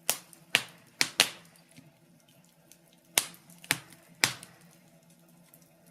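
Wood fire crackling in a fireplace: sharp pops come in little clusters, about seven in all, with a quiet gap in the middle, over a faint steady low background.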